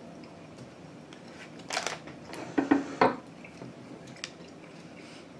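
Eating noises from chewing a chewy filled candy twist, with a few short crackles and clicks about two to three seconds in.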